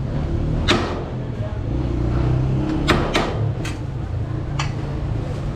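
Serving utensils clinking sharply against metal cookware, about five clinks over a few seconds, as a flat metal plate scrapes pulao rice from a large aluminium pot and a ladle scoops from a steel bowl. A steady low hum runs underneath.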